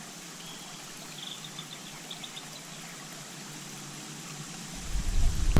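Faint, steady flowing and trickling creek water, with a few short high chirps about a second in. Near the end a much louder low rumble sets in.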